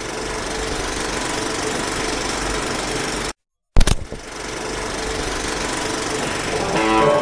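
Steady noise with a faint hum from a club's stage sound system and room, cut off sharply about three seconds in and back after half a second with a sharp pop. Near the end a few electric guitar notes begin.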